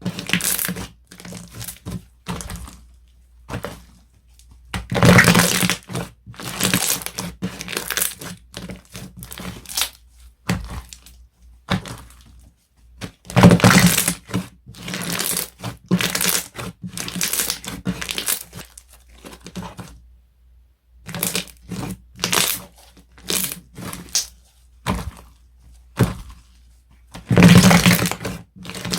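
Hands squeezing, stretching and poking slime, making irregular crackling, crunching and popping sounds, with the loudest bursts about five seconds in, around the middle, and near the end.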